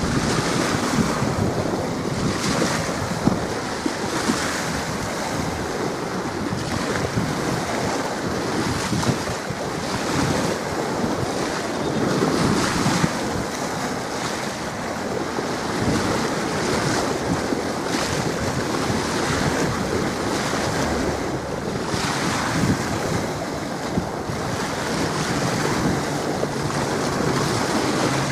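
Gusty wind buffeting the microphone over choppy water washing and lapping at the shore. A low steady hum comes in near the end.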